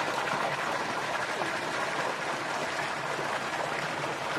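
Steady rush of water pouring from carved stone spouts and splashing into a swimming pool.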